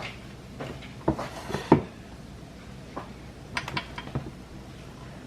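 Kitchen handling sounds: a few knocks and clatters in the first two seconds, the loudest near the two-second mark, then a few light clinks of metal or dishware about three and a half to four seconds in.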